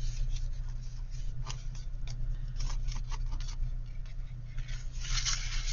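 Paper and cardstock being handled: scattered light clicks and taps, then a denser rustle of paper about five seconds in, over a steady low hum.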